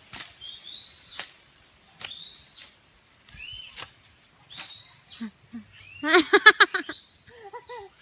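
Several short, high calls that rise and then fall, about one every one to two seconds, some led by a sharp click. Just after six seconds in comes a louder, quavering call, lower and fuller in tone.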